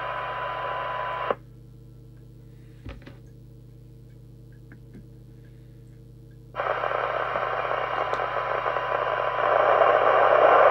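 Midland 77-095 CB radio's speaker giving a weak-signal 1 kHz test tone in hiss that the squelch cuts off abruptly about a second in, leaving only a low hum. About five seconds later the squelch opens again to a rush of hiss that grows louder near the end. This squelch cutting in and out is what the owner dislikes and puts down to wax on the squelch preset.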